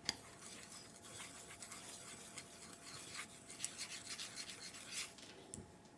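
Wooden chopsticks stirring flour and white pepper in a ceramic dish, scraping scratchily across its bottom in quick uneven strokes. A sharp tap as they first touch the dish, and the stirring stops about five seconds in.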